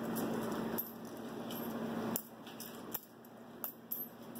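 Pennies clinking as they are dropped one by one onto the pile of coins in a floating aluminium-foil boat: scattered light metallic clicks, with a steady background hum that cuts off about halfway.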